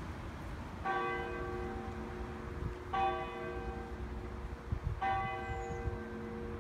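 Church bell struck three times, about two seconds apart, each stroke ringing on into the next.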